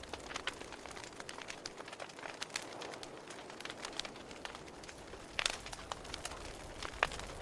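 Wood fire crackling, with irregular sharp pops and snaps over a soft hiss; the loudest pops come about five and a half and seven seconds in.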